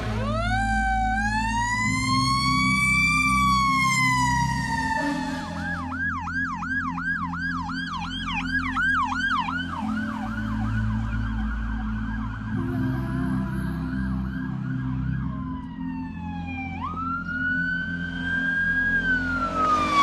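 Electronic emergency-vehicle sirens over low engine rumble. A slow wail rises and falls, switches to a fast yelp about six seconds in, and returns to a wail near the end.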